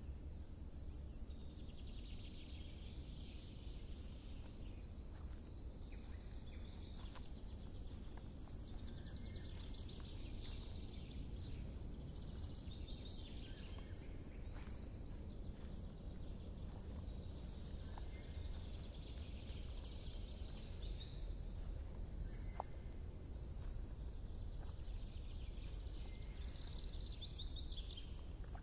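Birdsong in the open air: a trilled song phrase of a few seconds, repeated about every eight seconds, over a steady low rumble of outdoor background noise.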